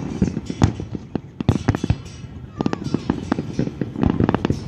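Fireworks display: shells bursting in a rapid, uneven series of booming bangs, several a second at times.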